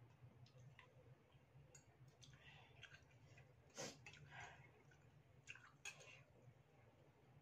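Faint eating sounds of a person having noodle soup: soft chewing and slurping, with a few clicks of a metal spoon and fork against a ceramic bowl, the sharpest a little before four seconds in. A low steady hum runs underneath.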